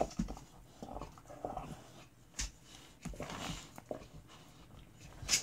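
A dog chewing and gnawing on a pink rubber toy: irregular soft mouthing noises and clicks of teeth on rubber, with one sharper click near the end.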